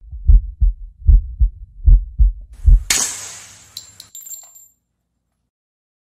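Sound-designed cinematic intro effects: deep double thumps like a heartbeat, four pairs, then a sharp crack with a hiss about three seconds in, followed by a few metallic clinks and a brief high ringing tone before the sound stops.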